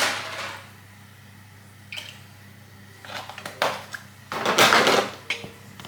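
Full cream milk poured into a glass bowl, rushing in short spells with the loudest pour a little after four seconds in. There is a knock at the very start.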